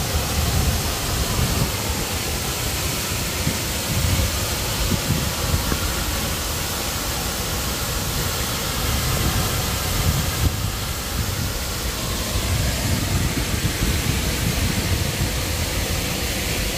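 Park fountain's water jet splashing down into a pond: a steady rushing hiss with an irregular low rumble underneath.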